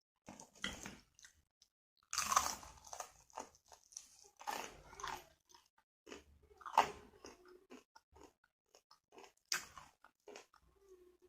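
A person chewing and biting into crunchy food close to the microphone: irregular crunches and wet mouth sounds, with the loudest bites about two seconds in and again near seven seconds.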